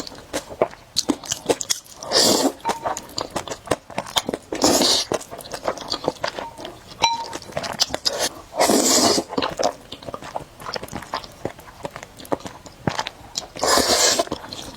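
Close-up mukbang eating sounds of spicy noodles: steady chewing with wet mouth clicks, broken four times by a louder slurp.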